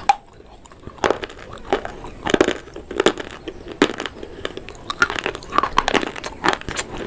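Broken pieces of dried black clay crunching and crackling as they are crushed, in a series of irregular crunches about once a second.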